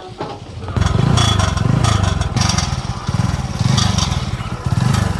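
TVS Apache RTR 4V motorcycle engine running, starting about a second in and rising and falling in pitch several times, with a coarse rattle from the exhaust silencer, where the inner pipe vibrates against the outer steel layer. It sounds ugly, like a tempo rather than a bike.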